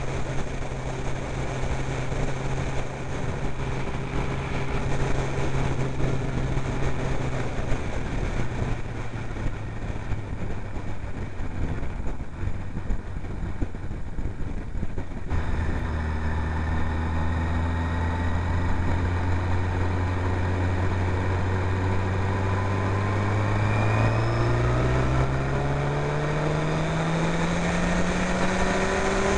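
Honda CBR sportbike engine heard from on board while riding, running at a steady speed over a rushing noise. The engine note fades for several seconds near the middle, then holds steady and rises in pitch over the last few seconds as the bike accelerates.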